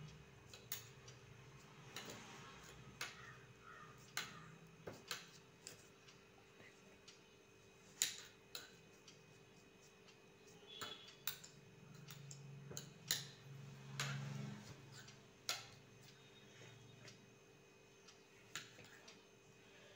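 Faint, irregular clicks and taps of a steel spoon against a glass pickle jar as cloth is pressed down inside it; the sharpest taps come about 8, 13 and 15 seconds in.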